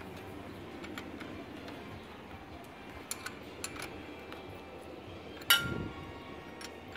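Light metallic clicks and taps of a wrench working a bolt on an outboard's lower unit, with one loud ringing metal clank about five and a half seconds in.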